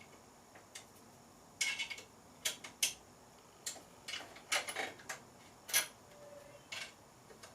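Irregular metallic clicks and clinks from bicycle fork, headset and stem parts being handled and fitted on a frame, about a dozen sharp ticks with pauses between them.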